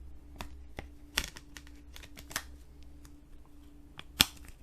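Plastic Blu-ray case and discs being handled: scattered clicks and taps, the sharpest about four seconds in, over a faint steady hum.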